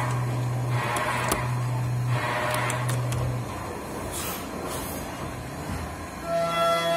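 CNC machining center drilling aluminium with a 26 mm drill at about 7,300 rpm. The spindle makes a steady low hum, with coolant-washed cutting noise surging in waves, and the hum stops about three and a half seconds in. After brief high hisses, a higher-pitched, many-toned whine starts near the end as the spindle runs a 25 mm end mill at 10,000 rpm.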